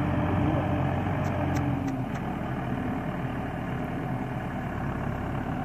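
Case JX95 tractor's diesel engine idling steadily, hitched to a loaded manure trailer; its low hum eases slightly about two seconds in.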